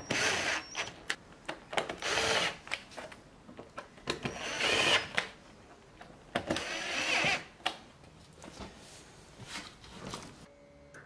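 A ratchet tightening fasteners in a car's engine bay, in several short bursts of rapid clicking with a few single clicks between them. A faint short tone sounds near the end.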